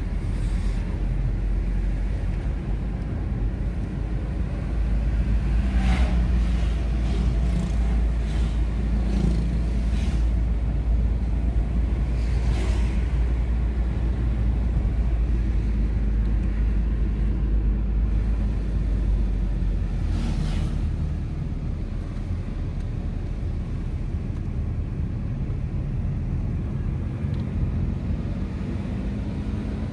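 Steady low road and engine rumble inside the cabin of a moving car, with a few brief knocks about six, twelve and twenty seconds in.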